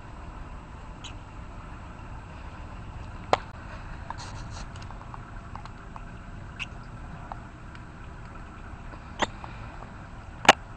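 Peach-faced lovebird pecking at a seed-filled knit toy and moving on a wire cage top: scattered sharp clicks and taps, the loudest near the end, over a steady low hum.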